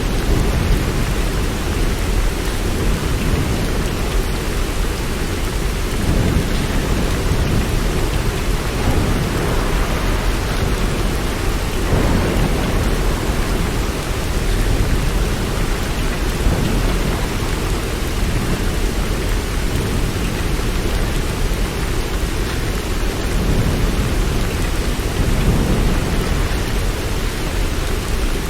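Steady rain falling, with low rumbles of thunder swelling and fading several times.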